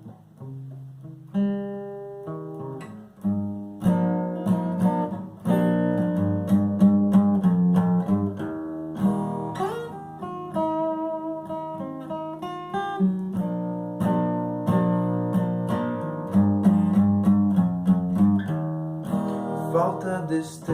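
Acoustic guitar playing a song's instrumental intro, picked notes and chords in a steady flow.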